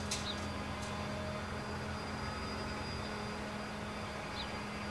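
Steady drone of neighbours' outdoor yard-work machinery, with a few light clicks near the start and again near the end.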